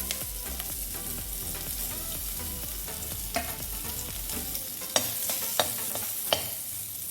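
Roughly chopped onion and garlic sizzling as they fry in oil in a pan while being stirred, with a few sharp knocks of the stirring utensil against the pan in the second half.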